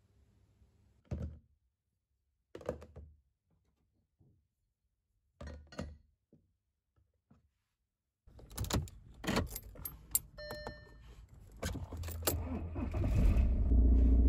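Cast-iron hand-drill parts set down on a wooden table with a few separate clunks. Then keys jangling and clicks and knocks from a car door and cabin, a short chime, and a car engine starting and running, its low rumble growing to the loudest sound near the end.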